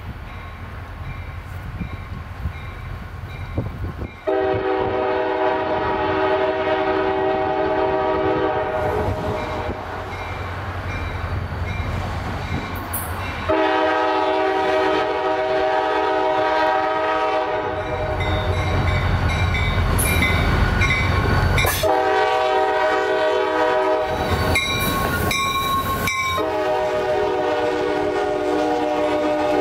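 Norfolk Southern diesel locomotive approaching and passing close, sounding its multi-chime air horn in four blasts: long, long, short, then a long one still sounding at the end. Between the blasts the diesel engine's low rumble is heard, swelling as the locomotive draws near.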